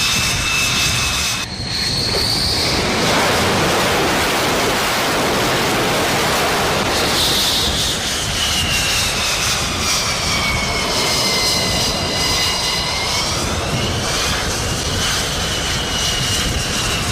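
Jet aircraft engine running loud, a steady roar under a high turbine whine that slides down in pitch about halfway through and climbs back up near the end.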